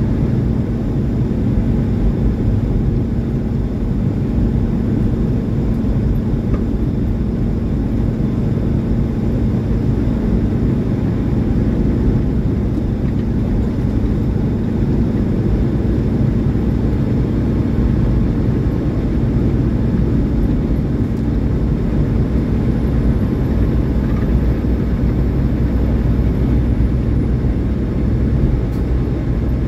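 Tractor-trailer truck driving at a steady speed: a continuous low diesel engine drone with a constant hum, mixed with road noise.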